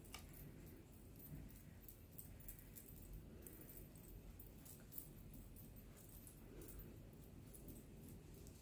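Near silence, with faint light clinks and ticks from a thin metal bracelet on the wrist moving as foundation is buffed on with a makeup brush; one tick about five seconds in is a little louder.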